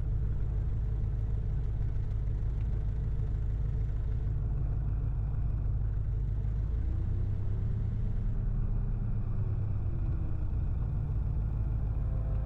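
Cessna 177RG Cardinal's four-cylinder Lycoming engine running steadily at low taxi power, a low, even rumble heard from inside the cabin.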